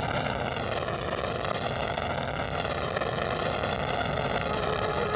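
Transport helicopter taking off overloaded with cargo: a steady din of turbine engines and rotor with a slowly wavering whoosh.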